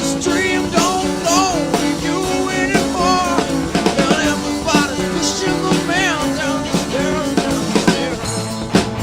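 Rock song from a CD recording: a band with drum kit, bass and a wavering lead melody line.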